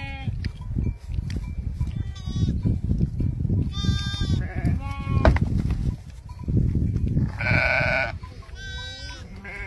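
A flock of sheep bleating, about half a dozen separate calls from different animals. The longest and loudest call comes about three-quarters of the way through. A steady low-pitched noise runs underneath.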